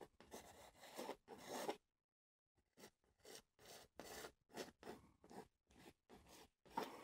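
Palette knife scraping and dabbing oil paint onto a canvas, faint, in quick repeated short strokes, with a brief pause about two seconds in.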